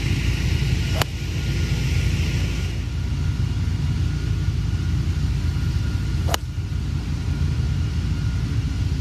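Two 4-iron golf shots struck in turn: a sharp click of club on ball about a second in, and another about five seconds later, over a steady low rumble.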